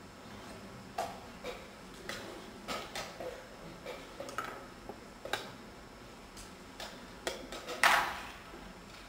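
Wooden chess pieces being set down on a board and a chess clock being pressed during a fast blitz game: a string of short, sharp clicks and knocks at irregular spacing, the loudest a clack with a brief ring about eight seconds in.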